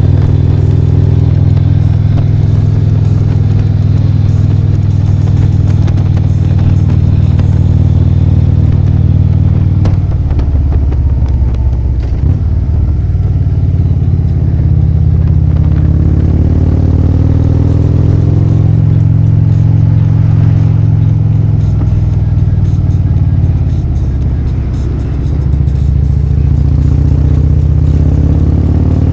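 A car making a loud, steady low drone, its pitch shifting a little now and then.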